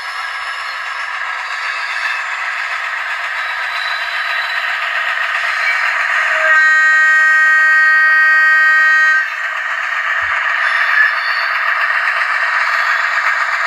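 ESU sound decoder in an HO-scale SBB Am 4/4 diesel locomotive model playing its diesel engine sound through the model's small speaker, with the wheels running on the track. About six and a half seconds in, one long steady horn blast of nearly three seconds sounds over it.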